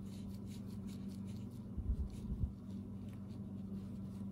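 Faint small clicks and scrapes of a chainsaw's Zama carburetor being handled as the metering-lever pin screw is tightened, over a steady low hum, with a couple of soft bumps about two seconds in.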